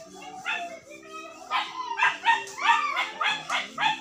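A dog barking over and over in short, sharp barks, which come faster, two or three a second, from about a second and a half in.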